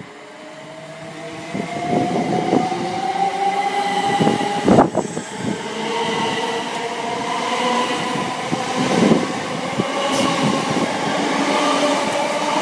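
Class 357 Electrostar electric multiple unit pulling out of the station and gathering speed as it runs past, its traction motors whining in a slowly rising pitch. A few sharp knocks sound over the top, the loudest about five seconds in.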